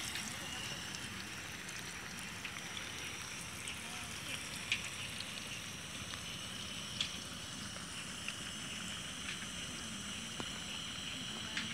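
Spinach-and-radish pakora batter deep-frying in hot ghee in a karahi: a steady sizzle with scattered small crackles and a few sharper pops.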